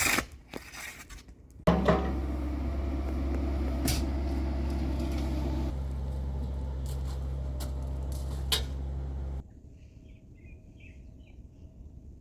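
A low-pitched motor running steadily, starting suddenly about two seconds in and cutting off abruptly after about nine seconds, with a few sharp knocks over it. Then faint short chirps.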